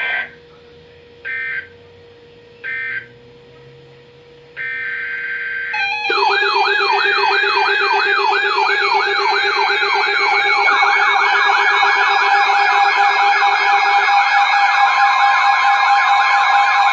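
Emergency Alert System data tones: a few short screeching bursts about a second and a half apart, then a longer one. They are followed by several sirens wailing and sweeping up and down together, which go on loudly over a steady tone.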